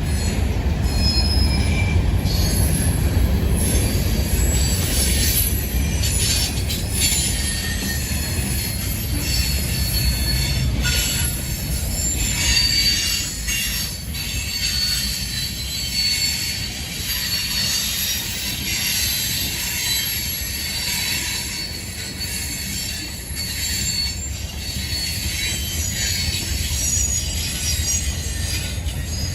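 Freight train rolling past with its wheels squealing against the rails: many high-pitched squeals come and go over a steady low rumble, which eases off partway through.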